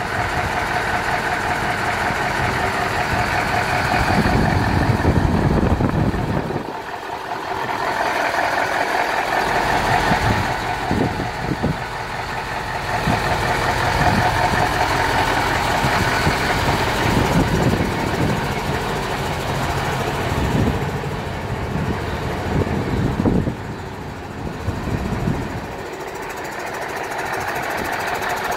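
Mercedes-Benz SK 2638 tipper truck's V8 diesel engine idling steadily, with a low rumble that briefly falls away twice.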